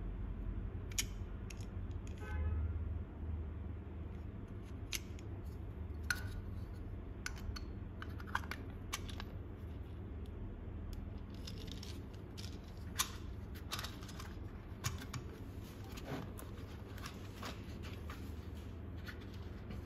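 Small plastic clicks and taps as a watchmaker's tool-tip holder and a clear plastic box of tips are handled and set into a hard plastic tool case, with a brief squeak about two seconds in, over a low steady hum.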